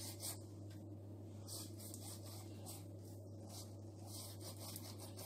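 Faint, soft strokes of a silicone pastry brush being dragged back and forth over a rolled log of dough, over a steady low hum.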